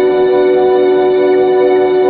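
Background music of steady, unchanging held tones.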